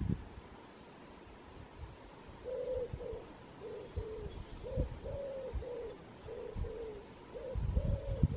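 A dove cooing, a run of soft, low coos in repeated phrases that begins a couple of seconds in, with a low rumble near the end.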